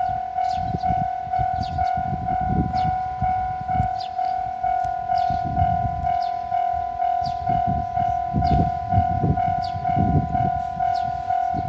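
Japanese level-crossing warning bell ringing in even electronic clangs, about two a second, with a low uneven rumble underneath.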